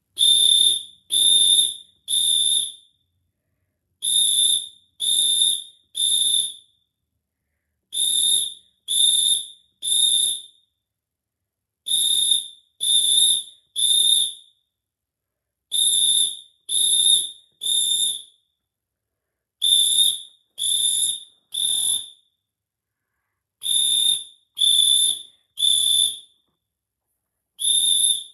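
Smoke alarm sounding its high-pitched evacuation pattern: three beeps, a pause, then three again, repeating about every four seconds.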